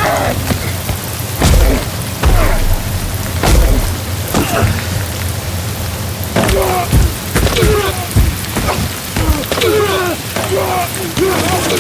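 Steady rain with men grunting and groaning, the grunts coming in quick succession through the second half. Several heavy low thuds land in the first few seconds.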